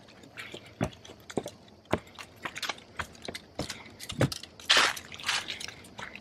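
Footsteps on the wooden planks of a footbridge, about two steps a second, with a louder scuffing sound about five seconds in.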